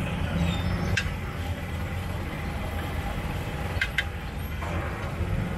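Busy street ambience: a steady low rumble of traffic, with a few short, high clinks or squeaks about a second in and again near four seconds in.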